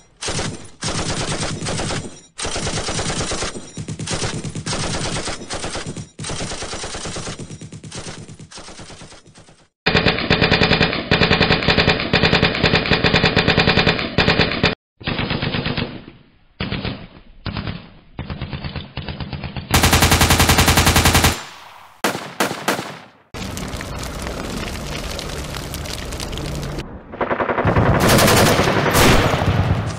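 Dubbed-in automatic machine-gun fire: burst after burst of rapid shots, spliced together from several different recordings. The bursts get louder about ten seconds in, with a long loud burst around twenty seconds.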